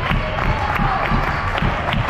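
Volleyball spectators cheering and shouting while clapping in a steady rhythm, about three claps a second.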